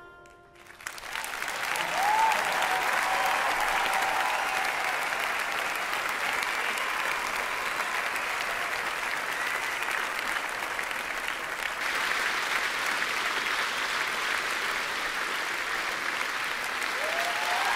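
The music dies away, and within a second a large audience breaks into steady applause, with a couple of short cheers rising above the clapping.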